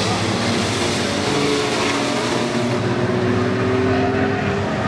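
Engines of compact pickup race trucks running at speed around the track, a steady drone with one engine note rising slowly in pitch over the second half.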